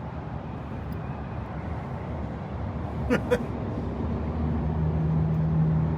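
Wind rumbling on the microphone. A steady low hum joins about two thirds of the way through.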